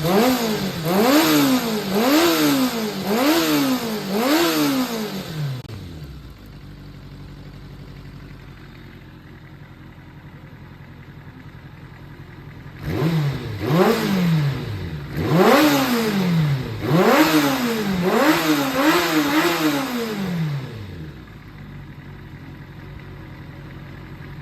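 Kawasaki ZRX400's inline-four engine revved in short throttle blips, about one a second, dropping back to a steady idle between two runs of blips and at the end. It runs without abnormal noise, as the seller describes it.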